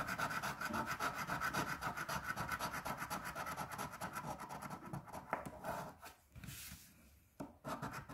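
Coin scratching the coating off a paper scratch-off lottery ticket in fast back-and-forth strokes, about eight a second. After about five seconds it breaks into a few short scratches with pauses between them.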